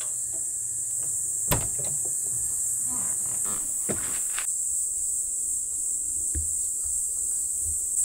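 Steady high-pitched insect buzzing throughout. A sharp click about a second and a half in, then a few lighter knocks a couple of seconds later, fitting the Hyundai Galloper's door being unlatched and opened.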